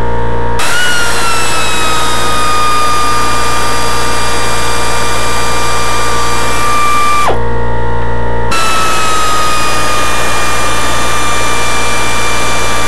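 Power tool with a socket run in two long pulls of about seven and five seconds, spinning off the upper intake bolts; each pull is a steady whine that sinks slightly in pitch and cuts off sharply. A steady machine hum, the air compressor, runs underneath.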